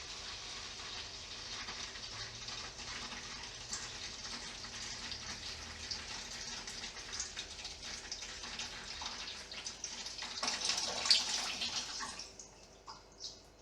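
Distilled water draining from a PC water-cooling loop through a drain tube into a bucket, a steady splashing pour. It swells briefly about ten to eleven seconds in, then falls away to scattered drips near the end.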